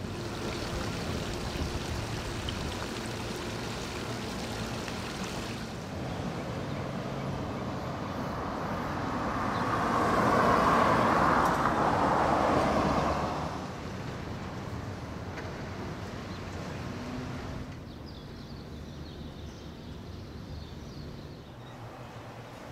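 Outdoor street ambience with traffic noise; a vehicle passing by swells to its loudest about ten seconds in and fades away a few seconds later. The background changes abruptly twice.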